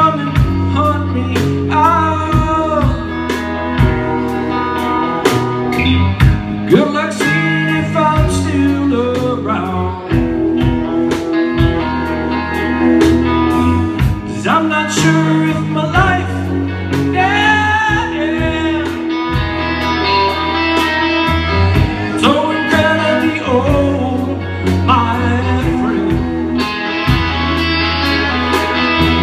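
A live rock trio playing: electric guitars and a drum kit under a sung lead vocal.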